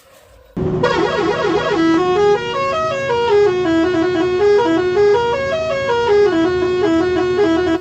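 Telolet-style musical bus horn playing a quick melody of short stepped notes that climb and fall over a steady held tone. It starts about half a second in and cuts off suddenly at the end.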